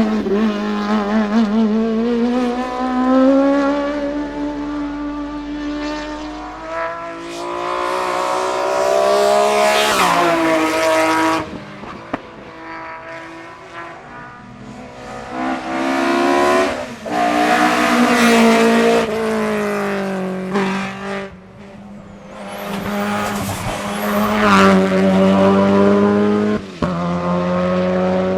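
Racing car engines at full throttle on a hillclimb, revving up through the gears. The engine note climbs and drops sharply at each shift or as a car goes by, several times over.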